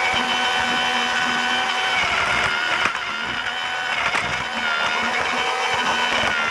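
Lego Duplo toy train's small electric motor running steadily as the train travels along plastic Duplo track, a constant whine with a few light clicks.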